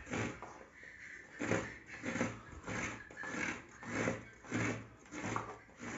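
A half coconut scraped hard against a small metal coconut grater, shredding the white flesh: a rasping stroke about every two-thirds of a second, steady and regular.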